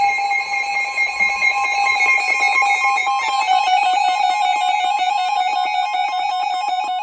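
Emergency Alert System attention signal: a loud, steady electronic alert tone that takes on a harsher, warbling edge about three seconds in.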